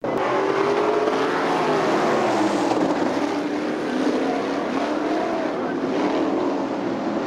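Several winged sprint cars' V8 engines racing on a dirt oval, their overlapping engine notes rising and falling in pitch as the cars go by.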